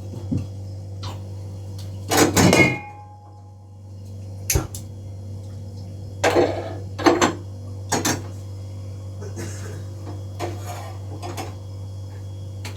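Metal cookware clattering on a gas stovetop: a string of knocks and clinks, the loudest about two seconds in with a short metallic ring after it.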